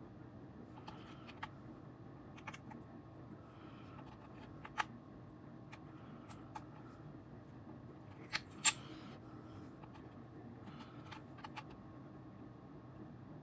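Scattered light clicks and taps of a long clay blade pressed down through polymer clay onto the work surface and handled, over a faint steady hum. The sharpest click comes a little past halfway.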